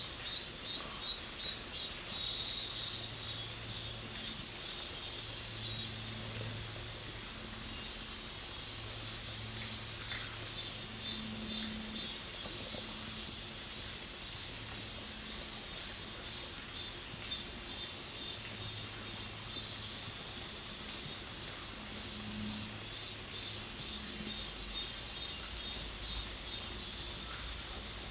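Summer insects chirping in an even pulse, about four chirps a second, over a steady high-pitched hiss of more insects.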